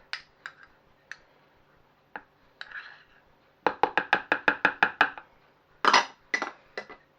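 Spoon knocking against a small bowl while chocolate sauce is measured in: a few light clicks, then a fast run of about a dozen taps, then a couple of louder knocks near the end.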